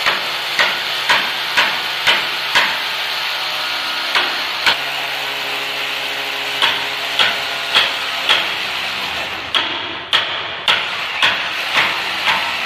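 Corded electric drill boring into a wall, a steady grinding noise, with sharp knocks about twice a second over it in several runs; the drill eases off briefly near the end.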